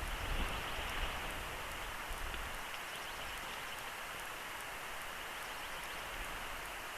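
Storm noise on an outdoor nest-camera microphone: a steady hiss of wind-driven precipitation with scattered faint ticks, and a low wind rumble that dies away after the first couple of seconds.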